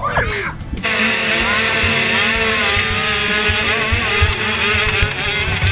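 Youth motocross bike engines running hard in a close pack, heard from a rider's own bike, their pitch wavering as the throttles work. It comes in suddenly after a brief moment of children's shouting.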